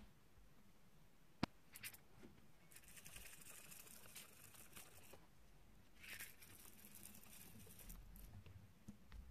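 Faint pattering of small sprinkles being scattered by hand onto slime, in two spells a second apart. Earlier there is a single sharp click.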